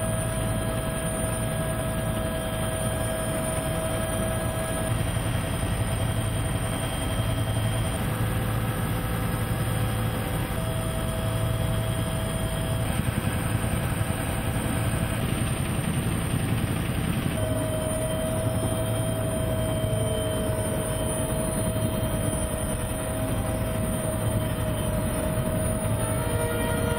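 Helicopter cabin noise heard from inside: a steady low drone with the engine's steady whine over it, its tones shifting slightly a few times.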